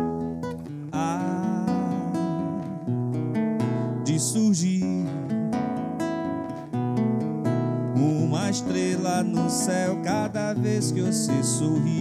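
Acoustic guitar played live, strumming chords and picking notes. A man's voice sings over it in places.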